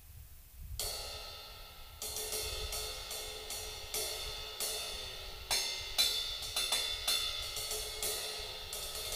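Armada Sparrow 16-inch crash cymbal struck again and again with a drumstick, starting about a second in. Each hit rings on into the next, and some hits are harder than others.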